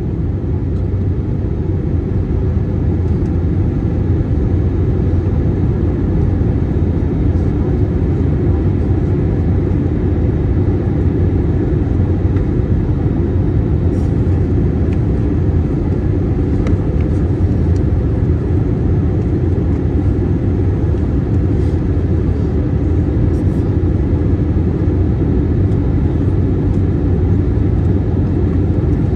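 Steady low rumble of airflow and IAE V2500 jet engines inside the cabin of an Airbus A321-231 airliner on approach, with a few faint clicks.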